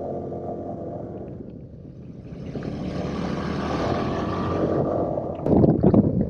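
Vespa scooter engine idling, then pulling away, its sound building as it gathers speed. From about five and a half seconds in, loud, gusty wind buffeting on the microphone covers it.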